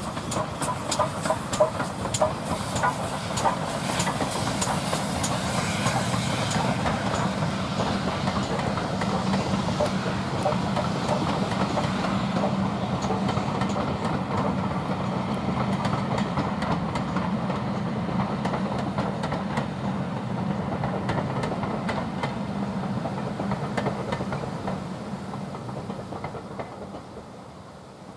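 Steam locomotive hauling a passenger train past, its regular exhaust beats heard for the first several seconds, then the coaches' wheels clicking steadily over the rail joints as they roll by. The sound fades over the last few seconds as the train draws away.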